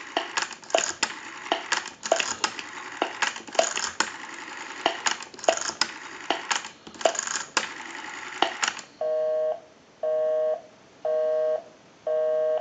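Rotary dial of a European desk telephone being wound and let spring back several times, its return whirring and clicking out pulses. For the last few seconds a busy signal follows, heard over the bench amplifier: two-tone beeps about once a second, meaning the dialed line is engaged.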